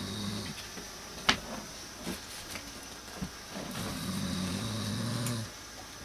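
A man snoring: a low buzzing snore dies away just after the start, and another lasting about two seconds comes near the end. Between them a sharp click about a second in is the loudest sound, followed by a couple of fainter clicks.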